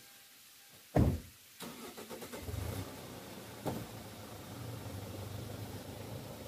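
A car door shuts with a loud thump about a second in. Then the Hyundai Grand Starex van's engine starts and runs steadily, with a short knock midway, as the van begins to pull away slowly.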